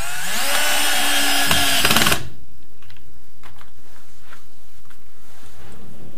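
Cordless drill-driver spinning up and driving a screw through a metal furniture bracket, its motor pitch rising at the start and dropping as it stops about two seconds in, with a few sharp clicks at the end. Then light knocks of the panel being handled.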